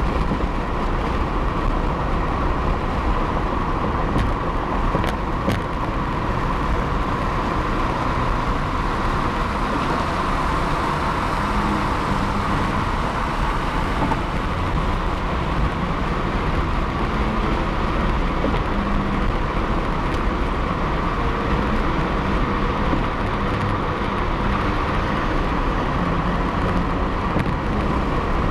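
Steady road noise inside a car cruising at highway speed on a concrete freeway: tyre and wind noise over a low engine hum.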